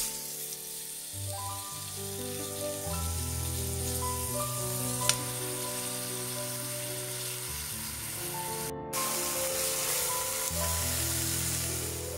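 Beef shank searing in hot annatto oil with garlic, a loud steady sizzle that starts as the meat goes into the pan, with one sharp click about five seconds in.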